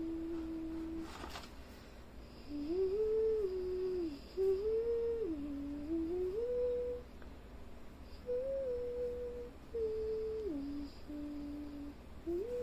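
A person humming a slow tune: held notes that step up and down, in short phrases with brief pauses between them.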